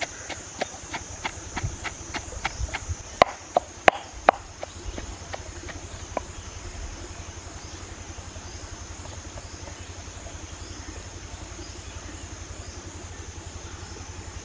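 Light knocks of a wooden pestle in a clay mortar, about three a second, with three louder knocks around three to four seconds in. After that a steady outdoor background with a constant high hiss.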